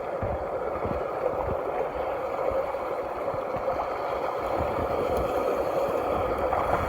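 Creek water running steadily, an even rushing sound with a few faint low knocks.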